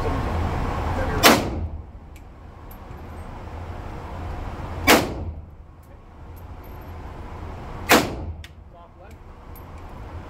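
Three gunshots from a wooden-stocked long gun fired in an indoor range, about three seconds apart, each with a short echo off the concrete. Faint clicks fall between the shots.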